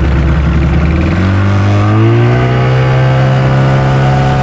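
Small boat's outboard motor speeding up: its pitch climbs about a second in, then holds steady as the boat runs under way.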